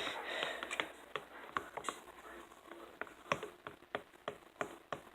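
Light, irregular clicks and taps, a few a second, from food colouring being mixed into glue for slime in a container.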